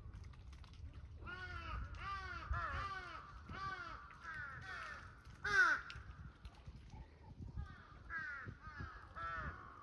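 A crow cawing in a long run of calls, each rising and falling in pitch, about one every half second, with the loudest near the middle. The calls pause briefly, then a few more come near the end over a low rumble.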